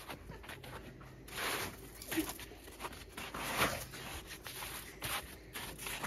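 Footsteps walking on packed snow and rock, uneven steps, with a few louder ones about a second and a half and three and a half seconds in.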